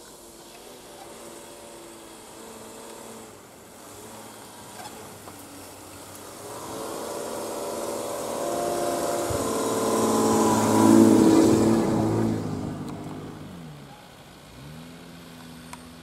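GAZ Sobol 4x4 van driving past on a snowy forest track. Its engine grows louder, is loudest about eleven seconds in along with the hiss of tyres in snow, then drops in pitch and fades as it moves away. Another engine revs up near the end.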